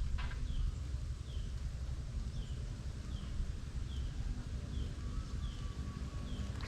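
A bird calling over and over, a short falling note repeated about once every second, over a steady low rumble.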